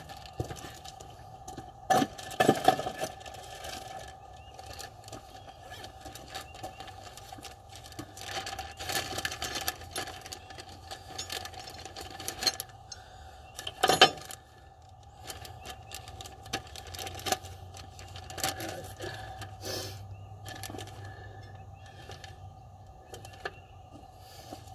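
Scattered metallic clinks and knocks of hand tools and engine parts being handled, with a louder single knock about fourteen seconds in, over a faint steady hum.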